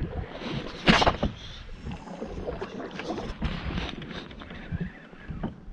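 Handling noise in an aluminium-free, unspecified canoe on open water: a steady haze of wind and water with small knocks, and one loud sudden burst about a second in.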